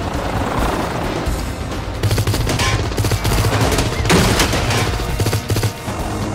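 Rapid bursts of automatic gunfire over a low steady drone, starting about two seconds in and stopping shortly before the end.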